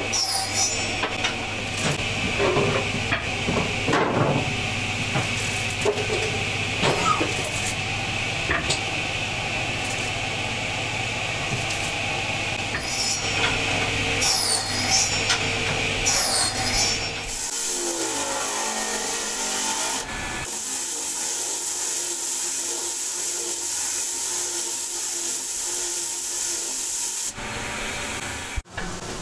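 Wood rubbing and scraping against wood, with a few knocks, as a ring of wooden staves is handled and fitted, over a low steady hum. About seventeen seconds in this gives way to a steady high hiss.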